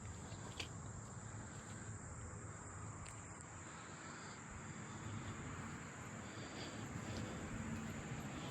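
Steady, high-pitched chirring of an insect chorus, with a low background hum and a couple of faint clicks.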